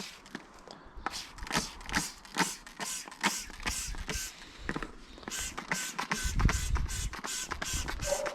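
Repeated quick squirts from a hand-pumped spray bottle of Muc-Off bike cleaner, about two to three short hissy sprays a second, being worked over a wet mountain bike. A low rumble joins about six seconds in.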